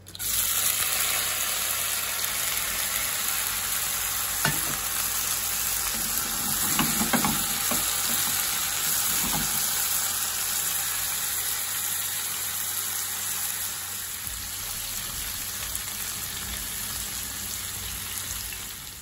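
Marinated prawns and squid sizzling in a hot stainless-steel pan. The sizzle starts suddenly as they go in and runs on steadily, easing slightly toward the end, with a few light knocks partway through.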